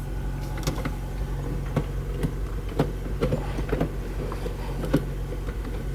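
Honda Civic Si's 2.0-litre four-cylinder engine idling steadily on a cold start, heard from inside the cabin, on freshly installed stiffer Boomba engine mounts. A few light clicks sound over the hum.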